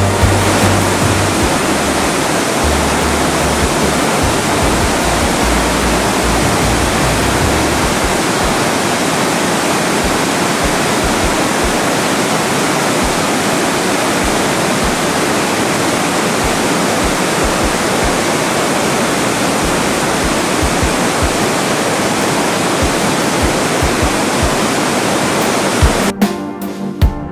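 A mountain torrent in spate after a storm, plunging white water through a narrow rock gorge: a loud, steady rushing of water. Music comes back in about a second before the end.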